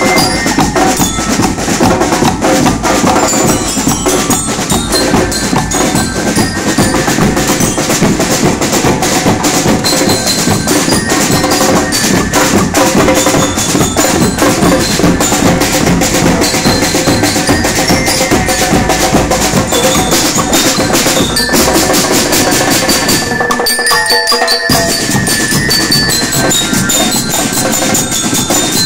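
Marching band of drums and bell lyres playing: snare and bass drums beat a steady rhythm under the ringing metal bars of the lyres. About three-quarters of the way through, the drums drop out for a moment while the lyres keep ringing.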